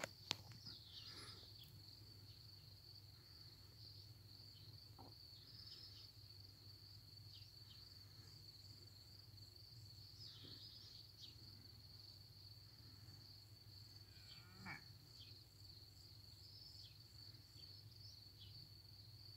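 Faint, steady high chirring of crickets in the grass at dusk, with a few scattered short faint chirps over it.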